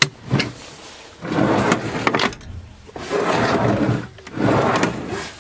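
A plywood drawer in a camper-van cabinet, slid in and out three times on its runners, each stroke a rough scraping slide, after a sharp click at the start. The drawer is rubbing on screw heads near its face.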